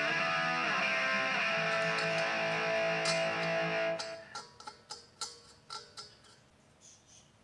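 Guitar music that stops about four seconds in, followed by a run of light clicks that fade away.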